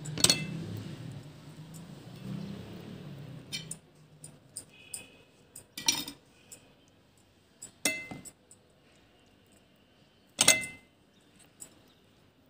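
A spoon clinking against a glass bowl and china plate: four sharp clinks, each with a short ring, a couple of seconds apart, the first and last loudest. A low rumble runs under the first few seconds.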